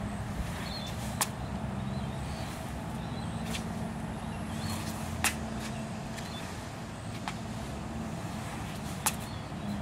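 Outdoor background noise: a steady low rumble like distant traffic, broken by five sharp clicks about two seconds apart, with a few faint high chirps in the first half.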